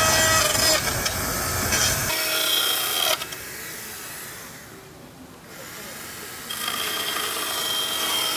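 Chainsaw running and cutting wood with a steady high whine for about three seconds. It drops away and comes back in about two-thirds of the way through.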